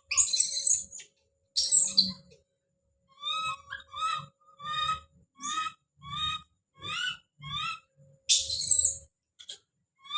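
Baby monkey calling out: short high-pitched calls repeated about twice a second, broken by three louder shrill screams, one at the start, one about two seconds in and one near the end.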